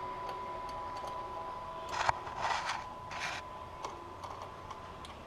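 Three short scraping sounds about two to three and a half seconds in, with a few light ticks, from hand work on the snowmobile's exhaust can mounting while its tension is checked. A faint steady high hum underlies them and fades out near the end.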